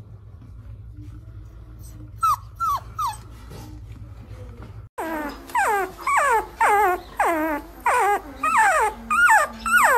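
Labrador puppy whimpering: three short, high, falling whines, then about five seconds in a newborn puppy crying in a steady run of louder falling whimpers, about two a second.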